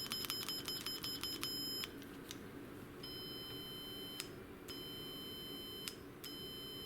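Electronic continuity tester beeping as a keyboard key switch is tested for contact: a shrill beep chopped on and off several times a second as the key is tapped, then three longer beeps of about a second each as the key is held down, showing that the cleaned switch now makes contact.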